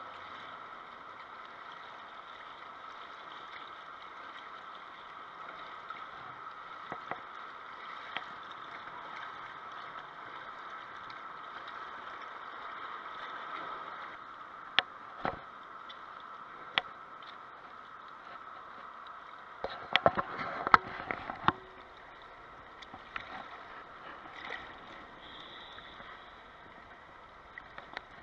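Steady wash of river water lapping against a rocky bank, with a few sharp knocks and clicks, the loudest cluster about twenty seconds in.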